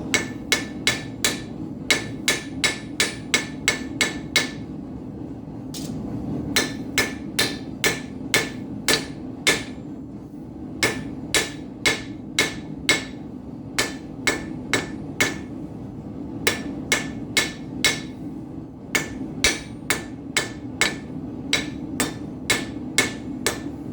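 Hammer blows on hot steel nail stock on an anvil, ringing sharply, about two to three a second in runs with short pauses between them. A steady low hum from the forge runs underneath.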